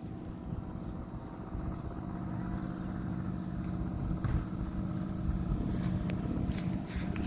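A 3.5-metre babon angrem kite in flight, giving off a steady, low droning hum with several overtones. A few faint clicks are heard over the drone in the second half.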